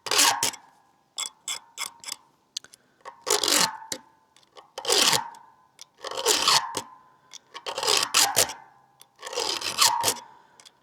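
A round file scraping across the cutters of a dull chainsaw chain during hand sharpening. It makes about one long rasping stroke every second and a half, with a faint metallic ring on each stroke.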